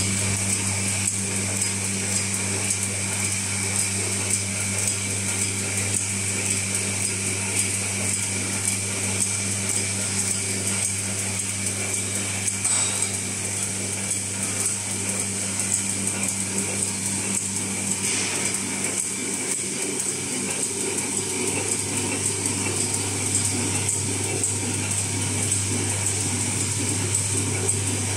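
Automatic cutlery packaging machine running steadily, wrapping single spoons: a constant mechanical hum with fast, even clicking of its moving parts.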